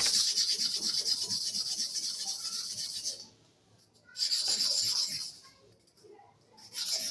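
Starex hair clipper blade being rubbed to and fro on a kerosene-wetted sharpening stone: a steady gritty scraping in three stretches, stopping briefly about three seconds in and again about five and a half seconds in.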